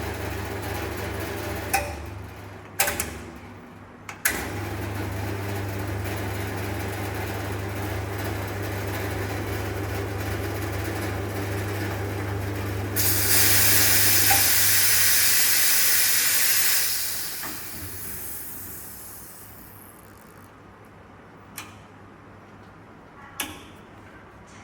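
Conti coffee machine running with a steady hum. Clicks near the start stop and restart the hum. About halfway through, a loud hiss of steam comes in suddenly and lasts about four seconds, then the machine dies away, with two more clicks near the end.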